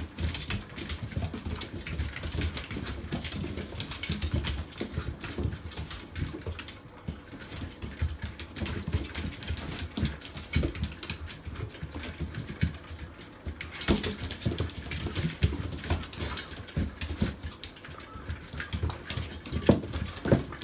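Labradoodle puppies eating dry kibble from a metal bowl as they circle it: a busy, uneven clatter of crunching and chewing, kibble and muzzles knocking on the bowl, and paws pattering on the floor.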